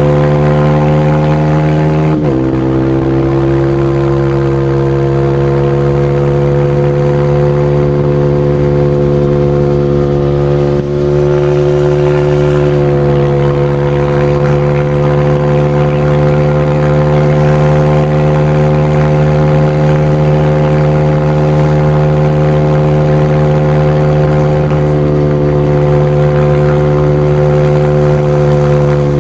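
Single-cylinder motorcycle engine running under steady throttle. Its pitch steps down once about two seconds in, then holds nearly level.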